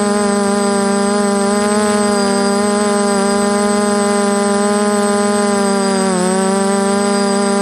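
DJI F330 quadcopter's brushless motors and propellers humming steadily in flight, recorded from a camera on the frame, with a brief dip and recovery in pitch about six seconds in.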